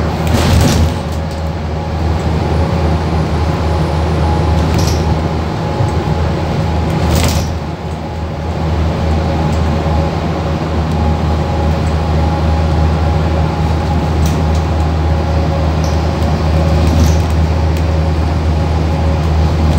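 Double-decker bus engine droning steadily as the bus drives, heard from inside the passenger deck, with a few brief knocks and rattles of the bodywork. The drone dips briefly a little before eight seconds, then picks up again.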